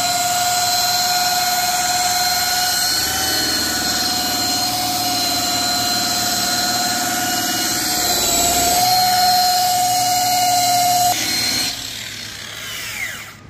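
Rotary polisher with a wool pad running steadily on a painted panel, cutting compound, with a steady whine. About eleven seconds in it is switched off and winds down, its pitch falling away.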